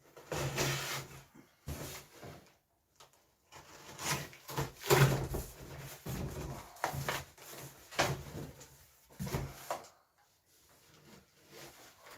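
Cardboard boxes and packaging being handled and opened: a string of irregular knocks, scrapes and rustles that dies away about ten seconds in.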